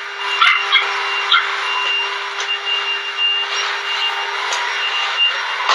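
Stick vacuum cleaner running steadily with a constant high whine, sucking up cut hair from the floor, with a few sharp ticks in the first second or so.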